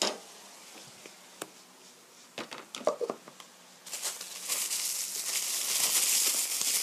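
Diced chicken frying in a pan with soy sauce, crackling and sizzling. A few light clicks come first, then the sizzle starts up about four seconds in and grows louder.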